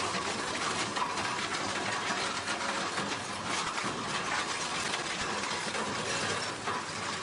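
Jet engines of a large air tanker passing low overhead: a steady, loud rushing noise.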